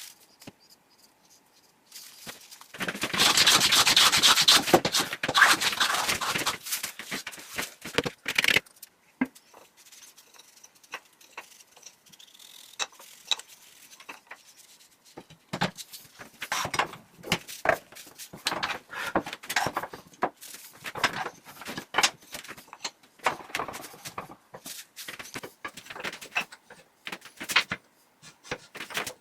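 Wood being sanded by hand: a loud stretch of quick rubbing strokes a few seconds in, then after a lull a run of shorter, separate strokes.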